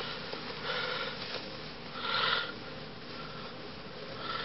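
A person's faint breaths or sniffs close to the microphone, soft puffs about once a second.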